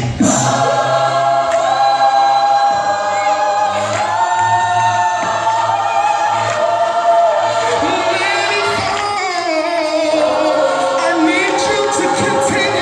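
Gospel choir singing a slow song in held, sustained chords over a steady low bass note.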